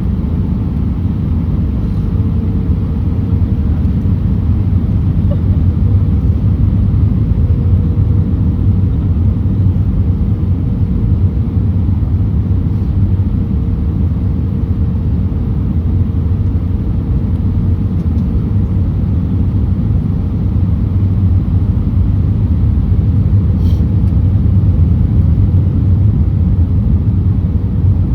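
Steady low rumble of an Airbus A319 heard from inside the passenger cabin, with a faint steady hum over it that fades out about two-thirds of the way through.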